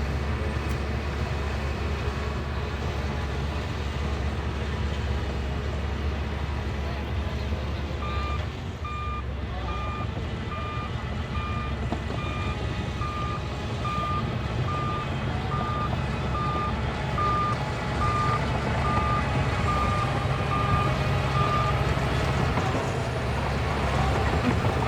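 Shantui bulldozer's diesel engine running steadily, with a reversing alarm beeping evenly, about once every 0.7 seconds, from about a third of the way in until near the end.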